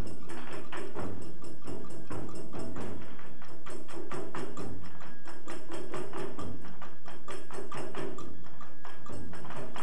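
Background music with a fast, regular percussion rhythm and low drum beats under held tones.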